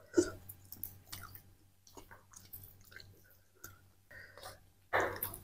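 Faint, scattered small clicks and soft wet sounds of people eating a meal of rice and salted fish.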